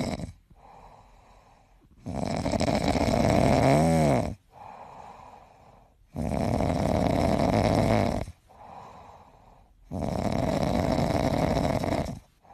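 Grey cat snoring loudly: three long snores about four seconds apart, each lasting about two seconds, with quiet breathing in between.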